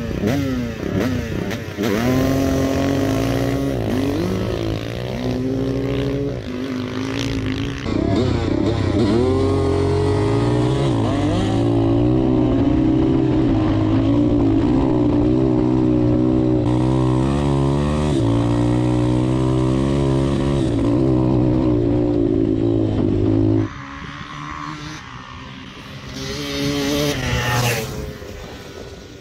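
250cc dirt bike engine at full throttle, climbing in pitch and dropping back again and again through the gears, then holding a high wavering note for about fifteen seconds. Near the end the throttle closes abruptly and the engine falls away, then revs up again.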